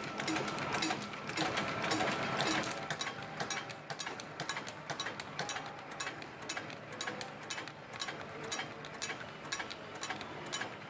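Autowrapper Super 2000 roll-wrap machine running, its mechanism clattering with a fast, steady stream of clicks; a little quieter after about three seconds.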